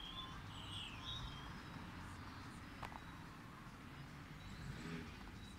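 A few short high chirps in the first second and a half, with a single click near the middle, over a steady low hum.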